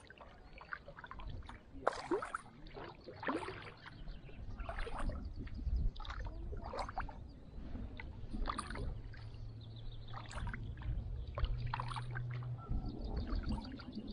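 Kayak paddle strokes on calm water: the blade dips and splashes in about every second or so, alternating sides, with water dripping and trickling off it between strokes.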